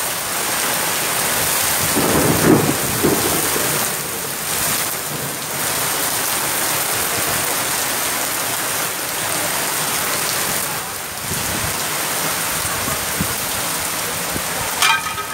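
Heavy tropical downpour beating down on pavement and an awning in a strong wind, a dense steady hiss with a louder low rush about two seconds in.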